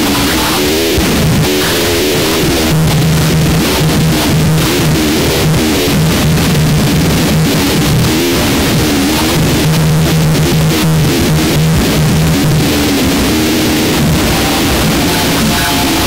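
Harsh noise music: a loud, dense wall of distorted noise with crackling on top, wavering mid-pitched tones, and a low drone that cuts in and out several times.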